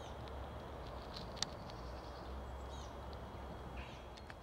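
Woodland ambience: a steady low rumble with a few faint, short, high bird calls and one sharp click about a second and a half in.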